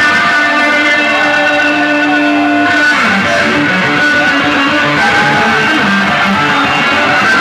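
Live rock band playing loud, with electric guitars prominent; a long held note gives way to a change in the music about three seconds in.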